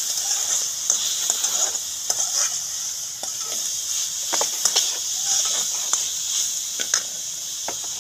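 Chopped onions and green chillies frying with spices in oil in a large metal karahi, a steady sizzle throughout. A metal spatula stirs and scrapes the pan, with repeated sharp clacks against the metal.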